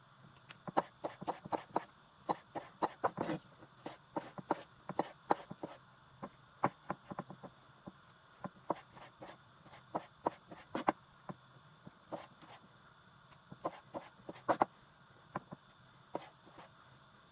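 A knife chopping on a cutting board: sharp, irregular taps, about two or three a second, with brief pauses between runs.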